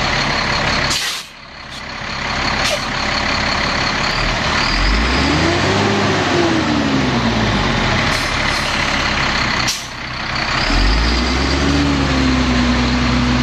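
The truck's Caterpillar C7 inline-six diesel engine running, revved up and let back down about five seconds in, then revved again near eleven seconds and held at a higher speed. There are two short sharp sounds, about a second in and just before the second rev.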